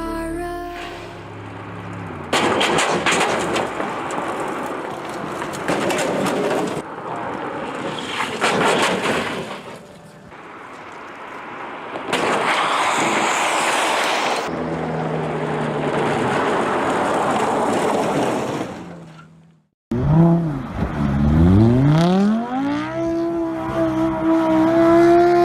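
Sports-car driving clips cut one after another: several stretches of loud, rushing vehicle noise without a clear engine note, then, after a short break, an engine revving up and holding at high revs.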